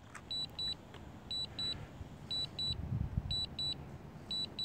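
Drone remote controller beeping: short high-pitched double beeps, about one pair a second, the alert that Return-to-Home is under way. A faint low rumble runs underneath.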